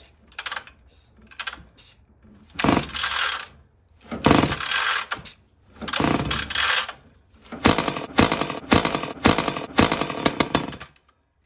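A ported McCulloch Pro Mac 850 chainsaw being pulled over on its recoil starter several times, each pull a second or so of chugging as the engine turns against very high compression, even with the compression release button used. It does not start. Near the end comes a quicker run of short, sharp strokes.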